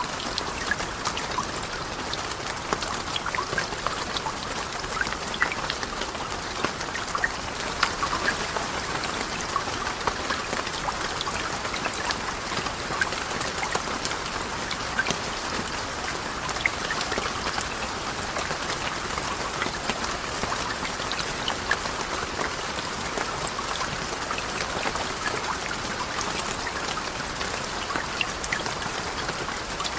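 Steady rain: an even hiss dotted with many small drop taps.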